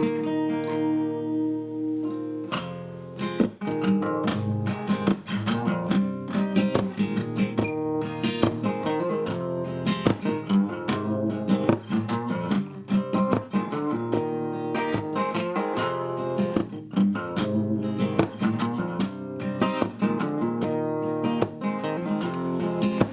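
Background music: acoustic guitar, strummed and picked in a steady rhythm.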